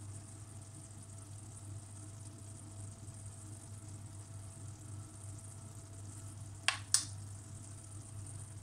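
Quiet room tone: a steady low hum with a faint hiss. Near the end come two sharp clicks about a third of a second apart.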